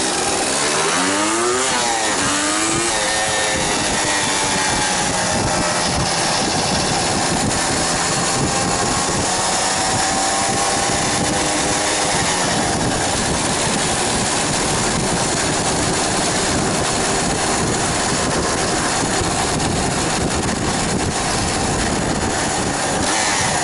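Yamaha DT230 Lanza's single-cylinder two-stroke engine under way: it revs up and drops back through quick gear changes in the first few seconds, then holds a steadier cruising note that rises and falls gently, over heavy wind rush on the microphone.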